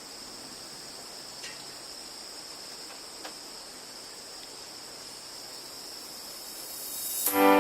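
Steady insect chorus of crickets, a continuous high trilling with a few faint ticks. Music comes in loudly near the end.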